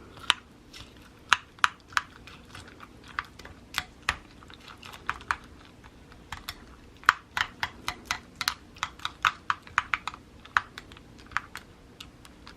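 Typing on a computer keyboard: irregular quick key clicks, several a second, with short pauses between runs.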